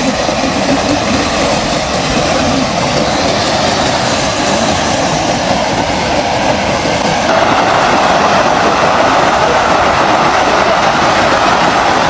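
Dense, continuous splashing of a mass of small fish thrashing at the water's surface inside a beach seine net being hauled into the shallows. It gets louder and fuller about seven seconds in.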